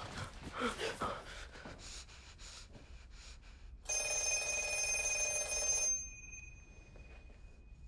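An old wall-mounted black telephone's bell rings once, about four seconds in, for roughly two seconds, and its tone lingers as it dies away.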